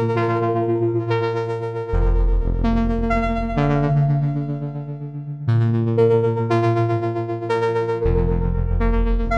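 Eurorack modular synthesizer notes shaped by Make Noise QXG low-pass gates opened by PoliMATHS functions. It plays a repeating sequence of overlapping pitched notes that each strike and fade, with a fast flutter in volume. A low bass note changes every two to three seconds, and the whole phrase comes round about every six seconds.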